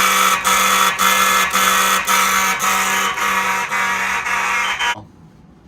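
Fire alarm horn pulsed through a relay timer module in an attempt at march-time coding: a loud, steady horn tone broken by brief dips about twice a second, which cuts off suddenly about five seconds in. The pulses are uneven and the gaps short, a poor march-time pattern that the owner says the timer doesn't do well.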